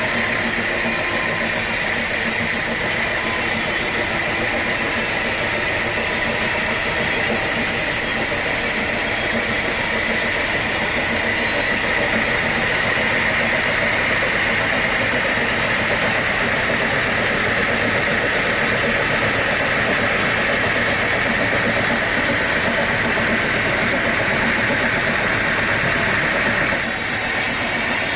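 Sawmill machinery running steadily: a continuous engine-driven mechanical noise with a steady high whine, whose tone shifts about twelve seconds in and again near the end.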